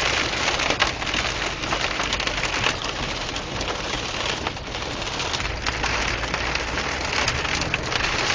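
Heavy rain falling: a dense, steady hiss full of small ticks from the drops.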